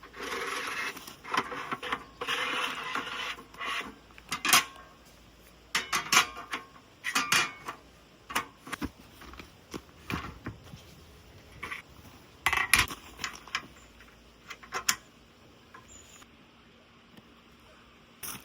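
Camping gear being handled: irregular clicks and knocks of hard parts, with stretches of rustling or scraping in the first few seconds.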